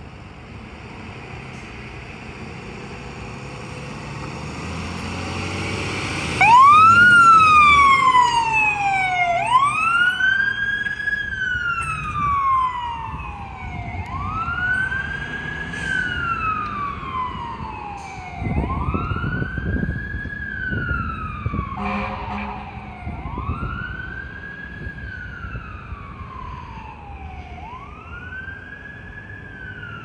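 Ambulance engine pulling away, then its electronic siren starting about six seconds in with a repeating wail that rises quickly and falls slowly about every three seconds, loudest at first and fading as the ambulance drives off. A short low air-horn blast sounds about two-thirds of the way through.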